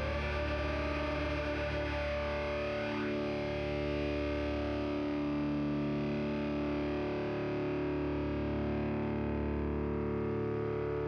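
Background music with sustained, distorted electric guitar.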